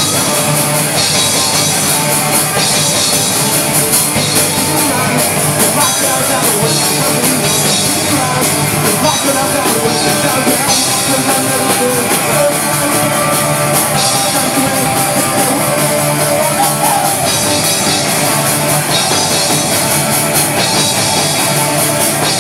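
Live punk rock band playing a song, with electric guitar, electric bass and drum kit, loud and steady throughout.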